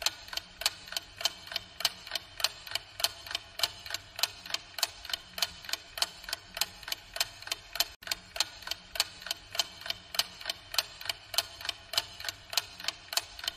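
Countdown timer sound effect: a clock ticking steadily and evenly, a few ticks a second, while the quiz answer time runs down.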